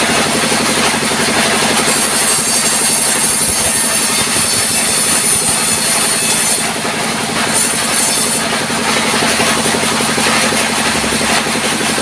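Sawmill circular saw bench cutting a wooden timber as it is fed through. A high whine of the cut comes in about two seconds in, breaks off briefly after the middle and returns, over the steady drone of the machinery driving the saw.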